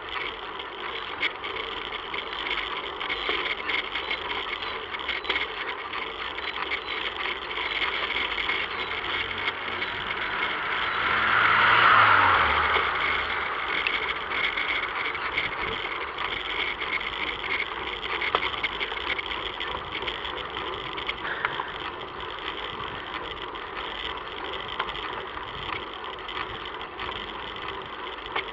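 Steady rolling and rattle noise of a bicycle on a paved road, heard through an action camera riding on the bike. About ten to thirteen seconds in, a car passes, growing louder and then dropping in pitch as it goes by.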